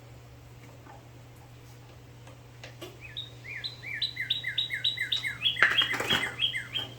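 A bird singing a run of about a dozen quick down-slurred chirps, three to four a second, starting about three seconds in and growing louder. A few sharp clicks come near the end.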